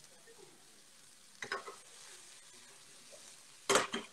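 Sliced onions frying in a pan on lowered heat, a faint steady sizzle. A wooden spoon knocks and scrapes the pan briefly about a second and a half in and twice near the end.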